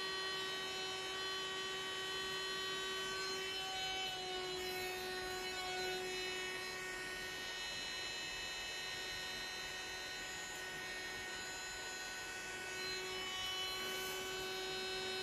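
Small handheld electric air blower running steadily with a motor hum and whine. It is blowing wet acrylic pouring paint outward across a tile to open a bloom. Its pitch shifts slightly about four seconds in and again near the end.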